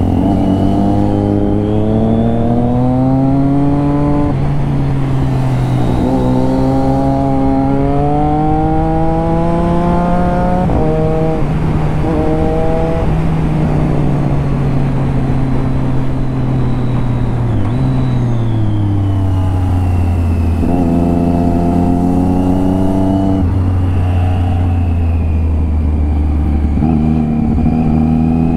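Triumph Daytona 675's inline three-cylinder engine under way, revving up through the gears: the pitch climbs and drops back at each upshift several times in the first half, then runs steadier and lower before climbing again near the end.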